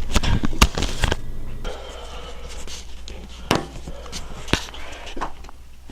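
Sharp knocks and clicks of home-gym weights and equipment being handled: a quick cluster of several in the first second, then two single knocks a second apart, over a low steady hum.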